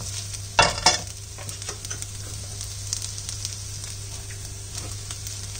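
Rice sizzling as it fries in oil in a non-stick pan while a slotted spatula stirs it. Two loud scrapes or knocks of the spatula against the pan come just under a second in, then lighter scraping over the steady sizzle.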